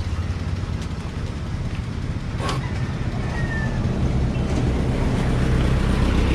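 Small mini truck's engine running steadily close by, growing louder about four seconds in, with a single knock about halfway through.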